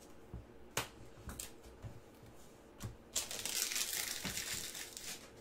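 A few light knocks from cards and packs being handled, then plastic wrapping crinkling and tearing for about two seconds, as a trading-card pack is handled and opened.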